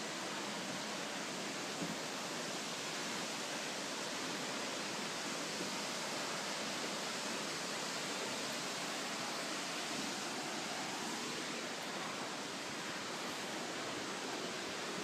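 Wangi Falls' waterfall rushing in a steady, even roar of falling water.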